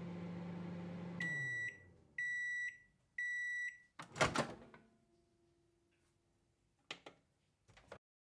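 Microwave oven finishing: its running hum winds down, then three high beeps about a second apart. A loud clunk comes a little after four seconds in, and two short clicks near the end.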